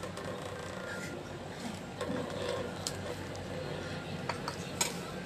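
Metal spoon clicking and scraping against a plate as food is scooped, a few sharp clicks over a steady low hum.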